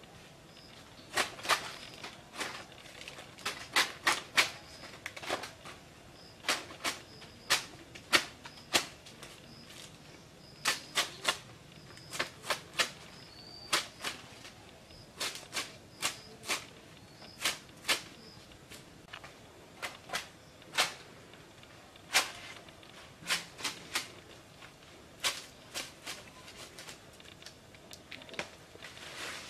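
Green banana leaves being torn and their stems snapped by hand, giving irregular sharp cracks, some single and some in quick pairs or clusters. A faint high chirp repeats steadily behind them.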